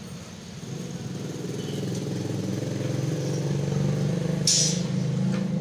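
An engine running steadily with a pulsing low rumble that grows louder, and a short hiss about four and a half seconds in.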